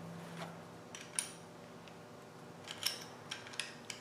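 A few light metallic clicks and clinks of hand tools against a Land Rover 2.25 engine's valve rocker gear during valve adjustment: one about a second in, then a short cluster near the end, over a faint steady hum.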